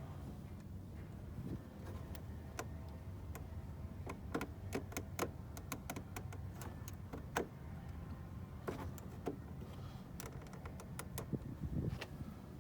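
Scattered sharp clicks and light metal taps as a pickup door lock cylinder's retaining clip is worked down into place, over a steady low hum.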